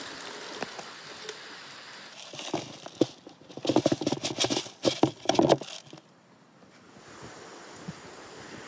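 Bread pieces and grain poured from a plastic bowl, pattering and rattling onto the wooden floor of a bird feeder in a burst of about three seconds, starting a couple of seconds in.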